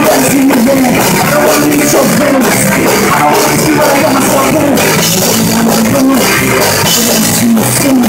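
Live rock band playing loudly: a man singing over electric guitar and drums.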